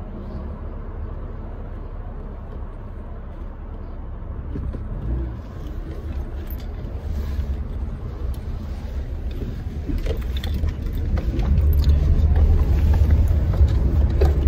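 Low engine and road rumble heard from inside a moving car, growing louder about ten seconds in, with a few light clicks and rattles.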